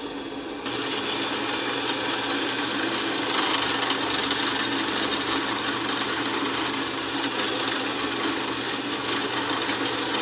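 Drill press running steadily with a twist bit boring into the end grain of a pine stick held in a vise, drilling a hole for a dowel joint.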